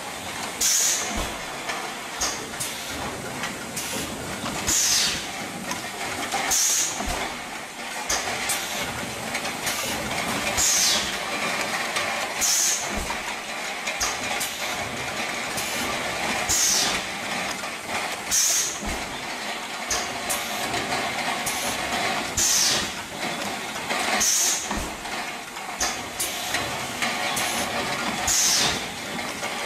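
Six-cavity PET bottle stretch blow molding machine running. Short, sharp hisses of compressed air venting come about every two seconds, over steady machine noise.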